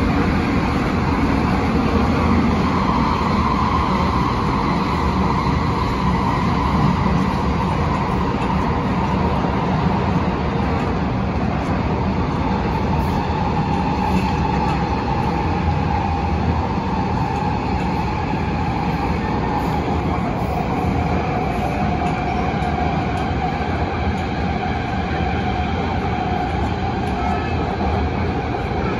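MTR Tung Chung line CAF train running at speed, heard from inside the carriage in a tunnel: a steady rumble of wheels on rail with a whining tone that slowly falls in pitch.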